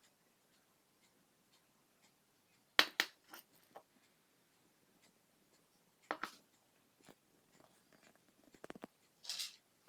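Small handling noises: a few sharp clicks and taps, the loudest about three seconds in, and a brief rustle near the end.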